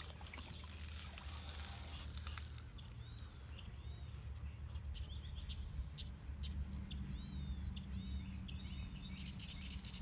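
A small wild songbird repeating short, high, arching chirps from about three seconds in, over a low steady rumble. Near the start there is faint splashing as a white Pekin duck slips into a pond.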